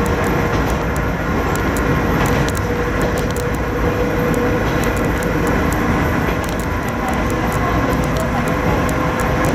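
Kanto Railway diesel railcar KiHa 532 running along the line, heard from inside the driver's cab: steady engine and wheel-on-rail noise with a constant humming tone and scattered light ticks.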